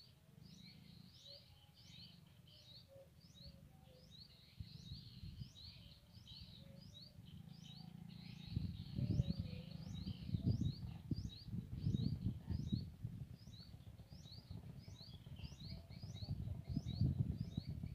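A bird repeating a short, high chirp over and over at an even pace, one or two a second. From about halfway, a low irregular rumble comes in under it and is louder than the bird.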